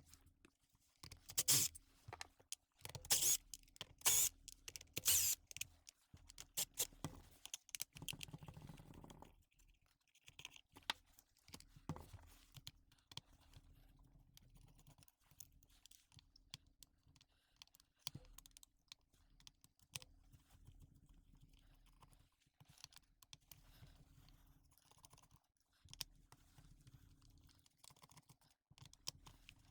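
Clicks, taps and knocks of a tool and small parts being handled as a cordless impact wrench's housing is taken apart. The knocks are louder in the first several seconds and give way to fainter, scattered tapping.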